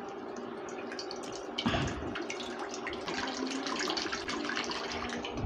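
Water pouring in a steady stream from a plastic jar into an empty metal wok (kadai), splashing on the metal and into the water pooling at the bottom as the pan fills. The splashing is briefly louder less than two seconds in.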